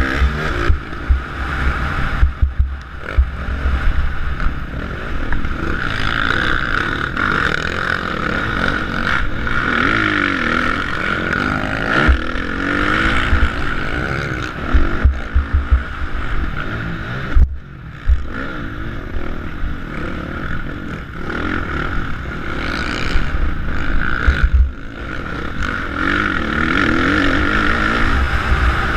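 Motocross dirt bike engine revving up and falling back again and again as the rider accelerates and shifts around a dirt track, heard from a helmet-mounted camera, with sharp knocks as the bike hits bumps and lands.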